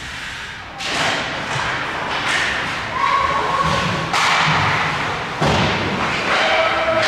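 Ice hockey game play: hard thuds against the rink boards. Sharp ones come about a second in, just after four seconds and again around five and a half seconds, over a steady noisy wash of the game.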